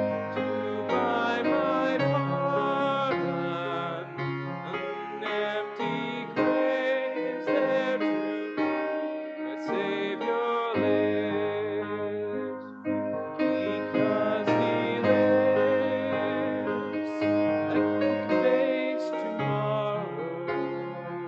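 Congregational hymn singing with piano accompaniment, a slow, steady hymn in sustained chords.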